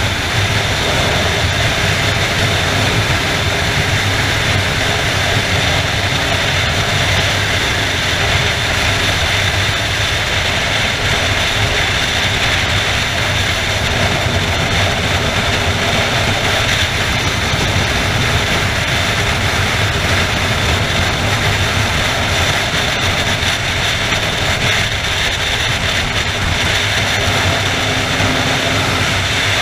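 Sport motorcycle cruising at freeway speed: a steady engine drone buried in heavy wind rush on the bike-mounted camera's microphone.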